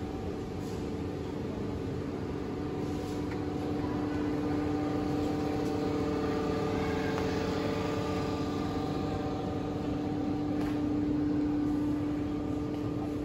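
Steady mechanical hum with a few steady tones, growing a little louder partway through and easing off near the end.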